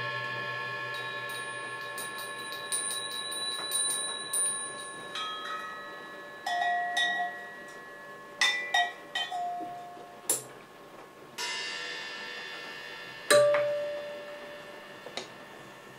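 Struck metal percussion played softly: light rapid ticking over a faint high ring in the first few seconds, then several separate strikes about a second or two apart, each leaving clear bell-like tones that slowly fade.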